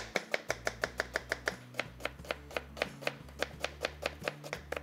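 Kitchen knife finely chopping a red onion on a plastic cutting board: rapid, even knife strokes, about five or six a second.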